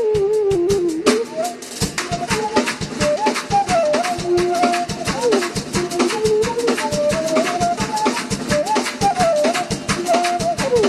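Drum kit played fast, with dense hits across the drums and cymbals, several strokes a second. A melodic line slides between held notes over the drumming.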